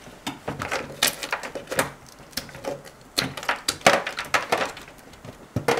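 Two small hand towels being soaked in a bucket of ice water, with irregular cracks and clatters of ice cubes knocking together.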